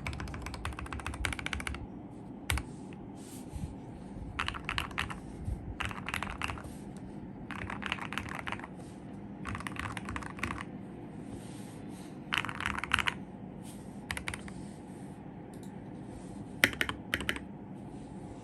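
Typing on a mechanical keyboard with lubed RK Red linear switches, foam and tape mods, and ASA-profile PBT keycaps: a short fast run of keystrokes, then bursts of rapid keypresses about a second apart with a few single key clacks between them.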